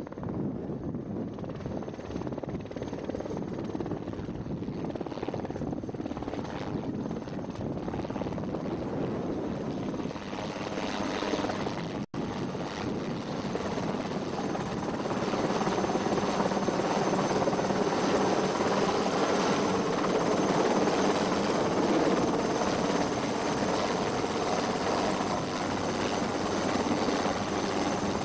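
Helicopter rotor and engine running throughout as it flies in with a sling load and hovers low overhead, growing louder about halfway through. The sound drops out for an instant about twelve seconds in.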